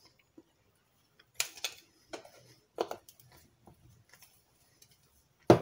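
Scattered kitchen handling noises: a metal teaspoon clicking and scraping on a wooden chopping board while spreading sugar over pork, and a jar being handled. A single sharp knock just before the end is the loudest sound.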